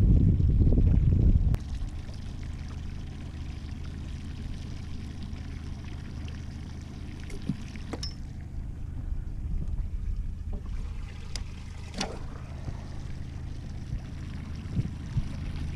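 Small outboard motor running steadily at trolling speed, a low even hum, with water splashing along the hull. Wind buffets the microphone for the first second and a half, and a few light clicks come around the middle.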